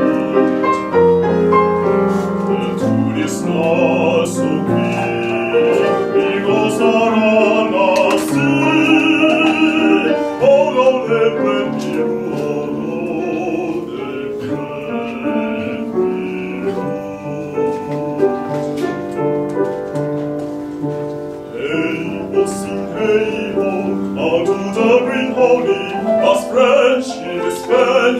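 A man sings in a classical, operatic style with wide vibrato, accompanied by a grand piano.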